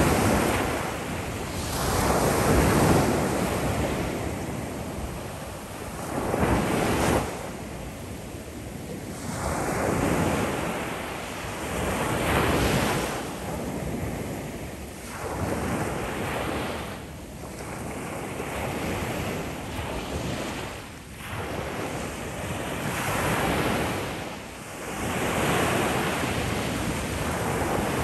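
Ocean waves breaking on the shore, each surge swelling and washing back every few seconds, with wind buffeting the microphone.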